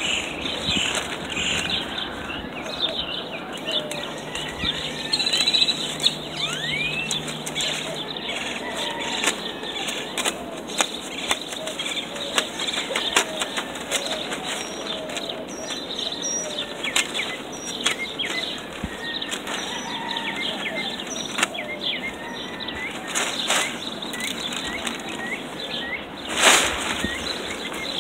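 Thick black plastic garbage-bag sheeting rustling and crackling as it is handled, spread and smoothed over garden soil, with many sharp crinkles throughout and one louder crackle near the end. Birds chirp faintly in the background.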